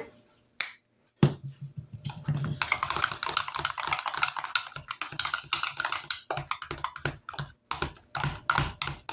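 A utensil stirring and mashing potatoes in a pot: a couple of single knocks, then from about a second in a quick, uneven run of clicks and knocks, several a second, as the seasoning is worked into the mashed potatoes.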